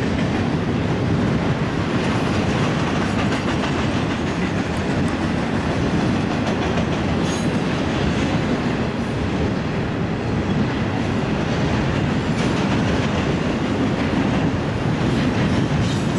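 Freight train cars rolling past close by: a steady rumble with the clatter of steel wheels on the rails.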